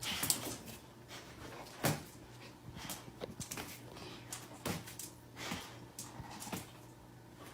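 A dog moving about at play: scattered knocks and scuffling, the loudest knocks about a third of a second and about two seconds in.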